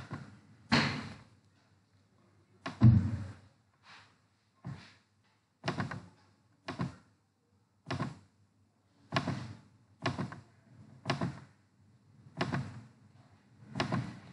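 A run of about twelve dull clicks or knocks, roughly one a second, the loudest about three seconds in: computer input clicks while presentation slides are being changed and pen marks drawn and erased.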